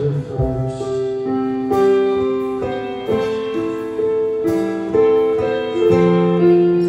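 Slow piano music, single notes and chords ringing out one after another with no singing.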